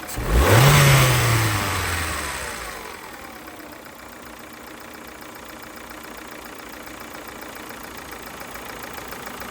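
Ford Mondeo Mk4's 1.6 Ti-VCT four-cylinder petrol engine blipped once, its pitch rising and falling, then settling back to a steady idle with a ticking and rattling noise.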